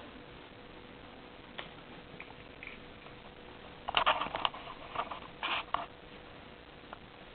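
Hamster crunching on an insect: a few single ticks, then a quick run of sharp crackles in the middle that fades out.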